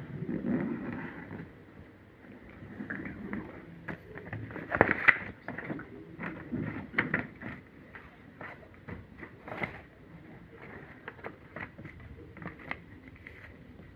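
Sheet of paper being handled and folded: irregular rustling and crinkling with many short clicks, loudest about five seconds in.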